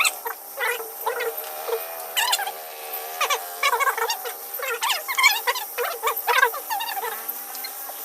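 Frogs calling in many short, repeated chirps, over a faint steady hum of insects.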